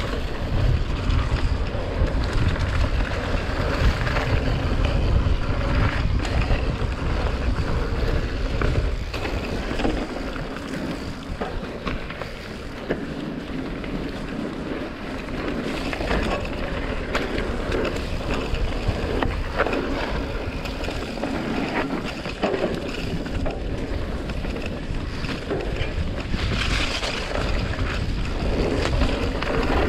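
Mountain bike riding fast over a dirt singletrack: tyres rolling on loose dirt and leaves, and the bike rattling and knocking over bumps. Wind rumbles on the camera microphone, heavy for the first ten seconds or so, then easing.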